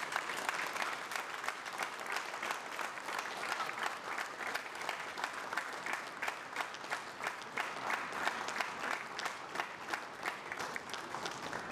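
Audience applauding in a hall, with dense clapping that falls into a regular beat of louder claps from a few seconds in.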